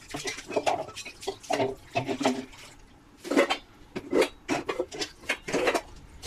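Kitchenware clattering: irregular clinks and knocks of metal and dishes being handled.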